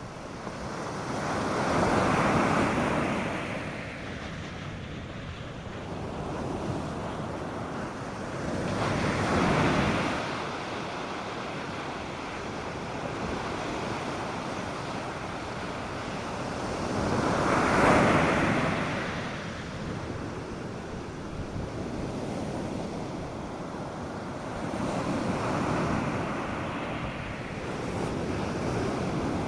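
North Sea surf breaking on a beach: four waves swell up and wash out, roughly every eight seconds, the loudest just past the middle, over a steady wash of surf between them.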